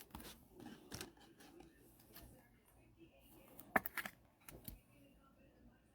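Faint handling of trading cards: scattered soft clicks and flicks as cards are slid through by hand, with a slightly louder few about four seconds in.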